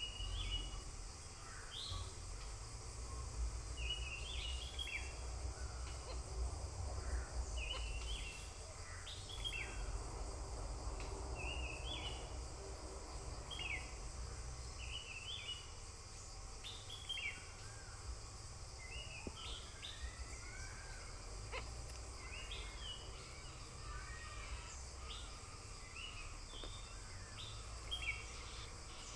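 Small birds chirping in short, high calls repeated every second or two, over a steady low rumble.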